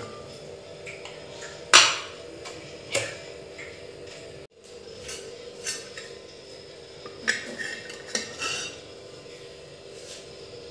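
Steel ladle and lid clinking against an aluminium pressure cooker while soup is stirred and scooped out: a loud clank about two seconds in, another a second later, then a run of lighter clinks in the second half, over a steady hum.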